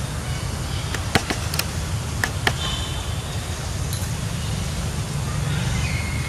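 Outdoor ambience: a steady low rumble with scattered sharp clicks in the first half, and faint thin high-pitched tones about halfway through and again near the end.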